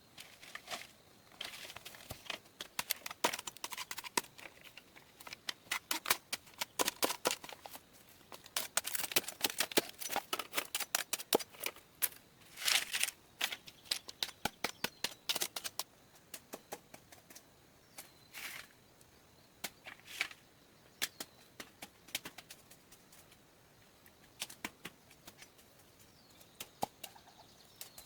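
Irregular runs of sharp, light clicks and taps, densest in the middle and thinning out near the end, like hand work with a tool or material.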